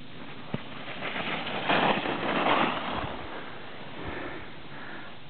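A short knock about half a second in, then about a second of loud rushing scrape from skis carving and skidding on packed snow, fading to a low background hiss.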